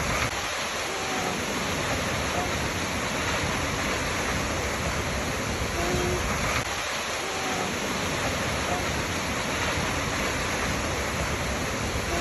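Waterfall rushing steadily, with a few faint brief tones recurring through it.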